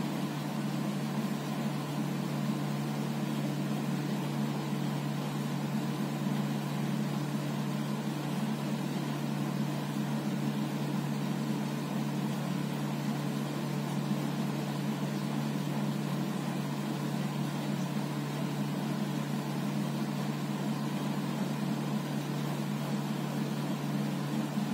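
Steady low mechanical hum with a faint higher tone above it.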